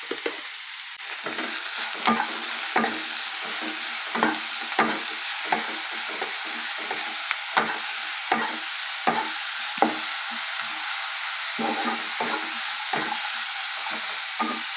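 Sliced onion and capsicum sizzling in oil in a non-stick kadhai while a wooden spatula stir-fries them, with short scrapes and knocks against the pan about once or twice a second over the steady sizzle.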